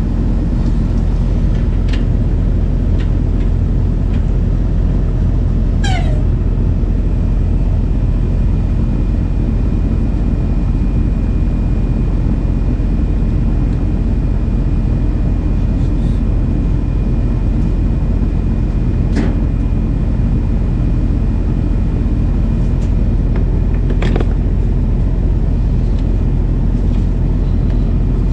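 Steady low rumble of a vehicle on the road, with a few faint clicks and a brief falling squeak about six seconds in.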